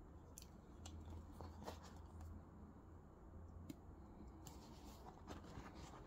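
Faint, scattered small clicks and light handling noises from hands working a gear shift knob and a small metal-bladed tool apart, over a low steady hum; otherwise near silence.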